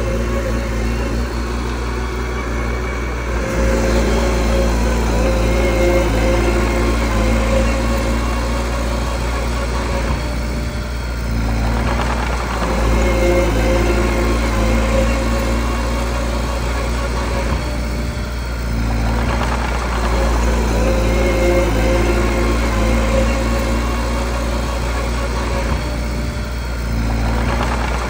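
Mini bulldozer's diesel engine running under changing load as it pushes stone and rock, its note shifting every several seconds.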